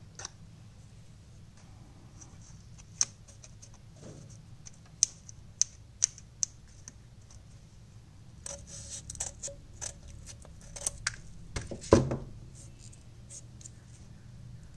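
Handling noises of sandpaper being pressed onto a plastic tube with gloved hands: a few sharp clicks and taps, then a stretch of paper rustling and scraping, and a heavier knock about twelve seconds in, the loudest sound.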